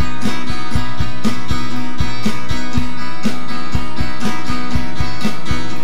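Opening music: a guitar tune over a steady beat.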